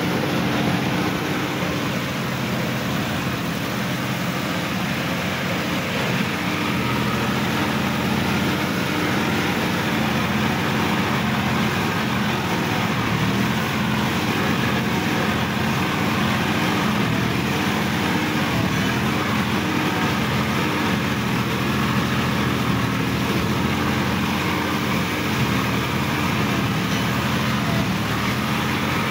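Sonalika DI-50 RX tractor's diesel engine running steadily as the tractor drives through paddy-field mud, heard from the driver's seat.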